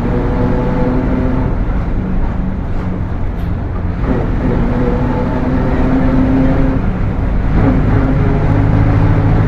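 Mercedes-Benz OF 1721 bus running, with a loud transmission whine over the engine hum. The whine breaks and shifts in pitch about four seconds in and again near the end.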